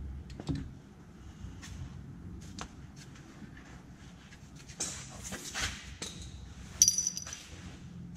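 Small handling noises from someone working under a golf cart and moving about on a moving blanket: scattered light clicks, a rustling scrape about five seconds in, and a sharp metallic clink near seven seconds, the loudest sound.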